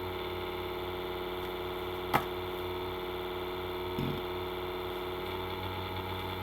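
Steady machine hum made of many even tones, with one sharp click about two seconds in and a soft knock about four seconds in.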